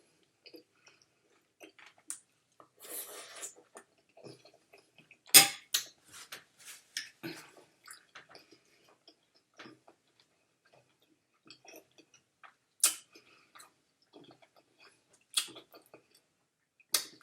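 Close-up wet chewing and lip smacking of spaghetti with meat sauce, an irregular run of soft mouth clicks broken by a few sharper, louder clicks, with a brief noisier stretch about three seconds in.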